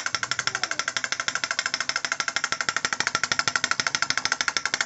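A toy drumming doll's arms beat its small plastic drum in a fast, even run of clicky taps.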